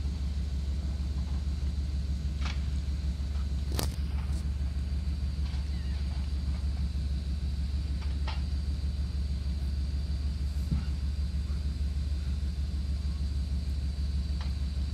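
Link-Belt 4040 forestry machine running steadily, a constant low engine drone with a faint high whine over it, and a few sharp knocks as it works.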